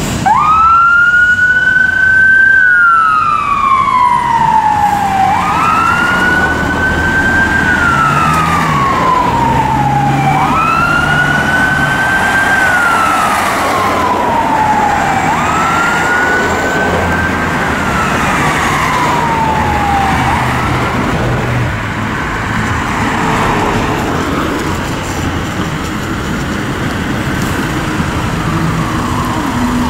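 Fire engine's two-tone-free wail siren, each cycle rising quickly then falling slowly, about every five seconds, over truck engine and traffic noise. The siren grows fainter after about twenty seconds as the engine drives away.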